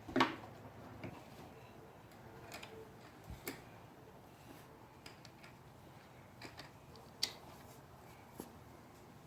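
Scattered light clicks and taps at irregular intervals, the sharpest about a third of the way in and again near the end.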